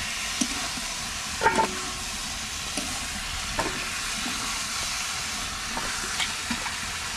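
Chicken and masala sizzling in an iron kadai, with a steady frying hiss. A spatula scrapes and knocks against the pan a few times as the chicken is stirred.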